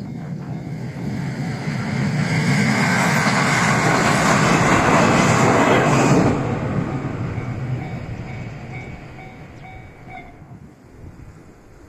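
JR West 223 series 5500 subseries electric train passing over a level crossing. It is loudest about four to six seconds in, drops off sharply as the last car goes by, then fades away. The crossing's warning bell rings in quick repeated dings and stops about ten seconds in.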